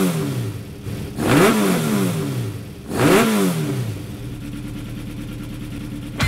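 Racing cars' engines accelerating past, three in quick succession about a second and a half apart. Each engine note rises to a peak with a rush of noise and then drops away, followed by a steady engine drone.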